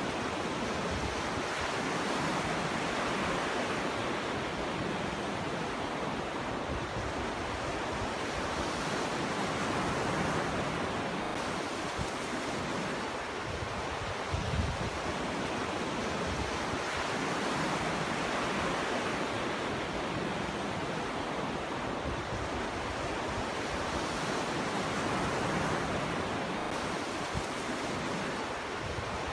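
Ocean surf washing onto a beach: a continuous rush of breaking waves that swells and eases about every seven or eight seconds. A brief low rumble of wind on the microphone comes about halfway through.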